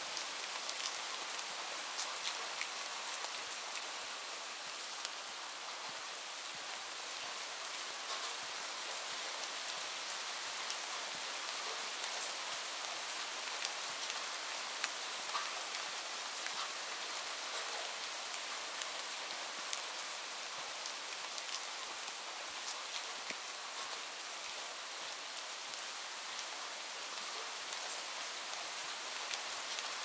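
Steady rain falling in a forest, with scattered single drops clicking close by.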